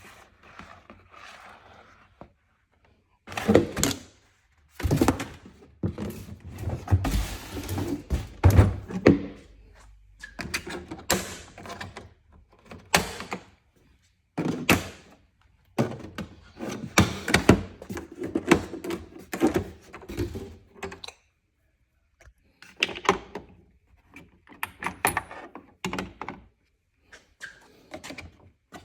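A new Craftsman tool set and its packaging being handled and opened: irregular thunks, knocks and rattles from the case and tools, with a few short pauses.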